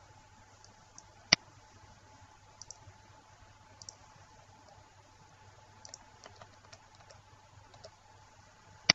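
Computer mouse clicking: scattered faint clicks, often in quick pairs, and two sharp loud clicks, one about a second in and one at the very end, over a faint steady hum.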